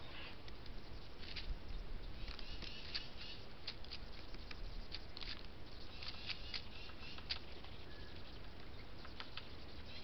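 Short, irregular light taps and clicks coming in quick clusters, typical of a red-bellied woodpecker pecking at a seed cake on a wooden feeder tray.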